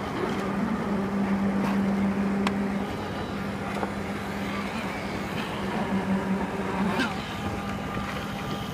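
An engine running steadily at constant speed, with a few light clicks and knocks over it.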